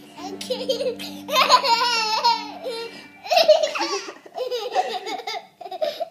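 A toddler laughing hard in repeated bursts while being rocked see-saw fashion on an adult's legs, with one long, high laugh of wavering pitch about a second and a half in.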